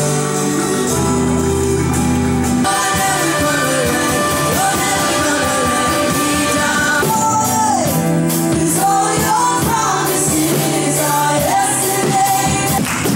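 Music with a singing voice: sustained low chords, then a sung melody rising and falling over the band from about three seconds in.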